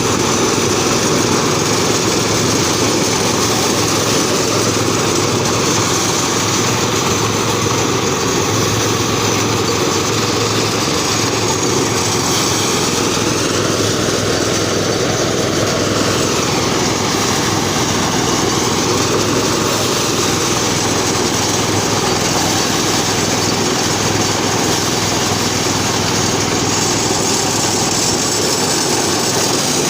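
A small engine running steadily and loudly without a break, a continuous mechanical drone with a low hum under it.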